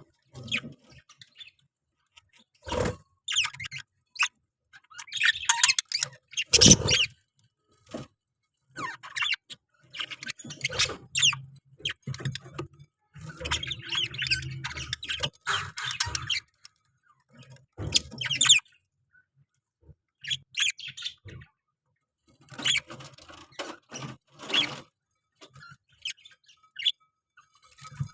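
Parrots chirping and chattering in irregular bursts with short pauses between them. Two sharp knocks stand out, one about three seconds in and one about seven seconds in.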